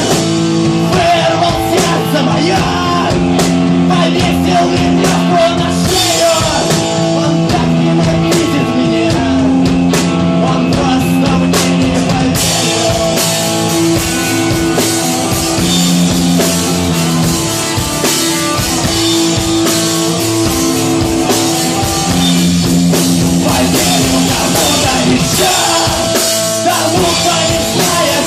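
Live rock band playing: distorted electric guitars holding sustained chords over a drum kit, with the cymbals growing brighter about halfway through.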